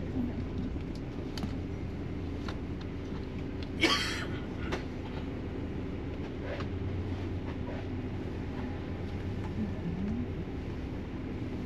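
Steady low rumble of a moving vehicle heard from inside, with scattered light clicks and one sharp clack about four seconds in.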